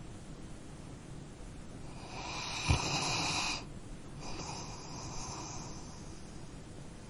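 A sleeping dog snoring: a loud snoring breath about two seconds in with a brief rattle near its peak, then a softer breath about a second later.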